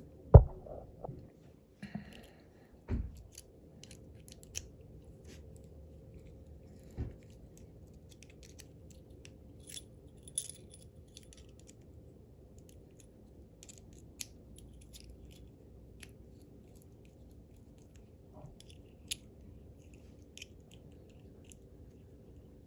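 Small metal clicks and taps from handling and probing a disassembled padlock and its brass core. A heavy knock comes just after the start, with two more knocks in the first seven seconds, then scattered light clicks.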